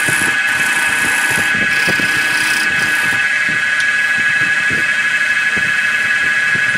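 Wood lathe running with a steady high whine while a turning gouge cuts a spinning, uneven wooden blank, giving a hissing scrape through about the first half. The cutting then stops and the lathe runs on.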